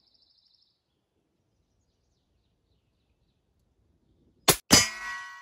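An AirForce Texan .50-calibre big-bore air rifle fires once after about four and a half seconds of near silence. A quarter second later the slug strikes a hanging steel plate target, which rings with several tones and dies away.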